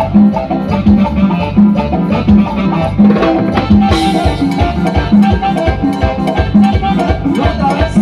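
Loud live Latin dance music from a band: a repeating bass line under drums and shaker percussion, keeping a steady beat.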